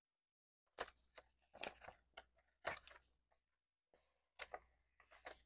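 Paper banknotes being counted by hand, making a series of short, faint, crisp rustles as the bills are fanned and shuffled.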